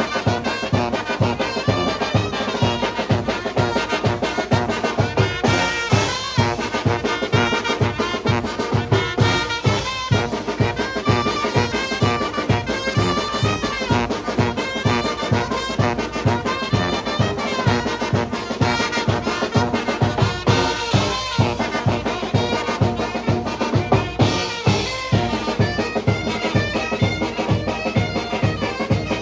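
Mexican brass band (banda) playing a tlacololero tune: trumpets and trombones over a steady beat of drums and low brass.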